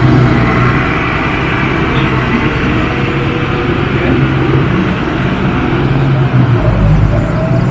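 Heavy vehicle engine running steadily and loudly, with a deeper rumble swelling briefly near the end.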